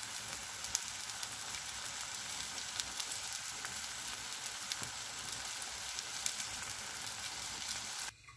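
Fried eggs with vegetables sizzling in a frying pan: a steady hiss with scattered small crackles. The sound cuts off abruptly near the end.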